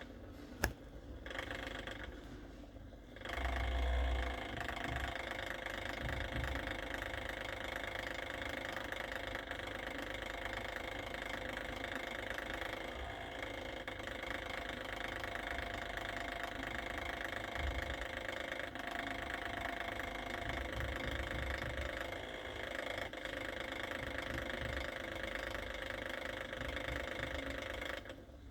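A small motor running with a steady hum made of several steady tones. There is a sharp click just under a second in and a short low thump about four seconds in.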